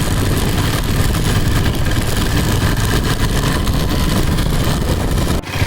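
KTM Duke 250's single-cylinder engine running with its drive chain turning over the sprockets, the chain freshly lubricated and running smoothly with no struggling noise. There is a short break near the end.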